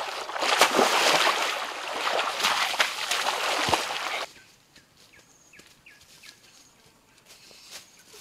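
River water splashing and churning as a person dives in and thrashes back up to the surface, stopping suddenly about four seconds in. After that only a few faint bird chirps.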